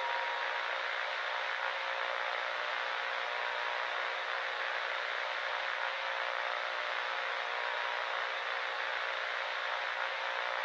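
Steady static hiss, like a dead broadcast channel, at an even level, with a faint steady tone beneath it.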